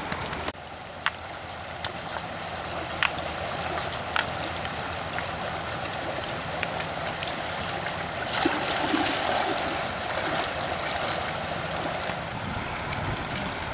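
Shallow stream running over rocks, a steady rush of water, with a few sharp crackles from a burning wood fire in the first few seconds.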